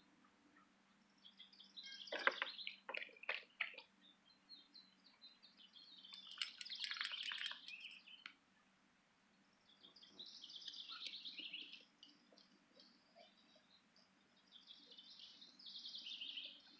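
Songbirds chirping in short bouts of a second or two, several times over. A few sharp clicks come between two and four seconds in, over a faint steady hum.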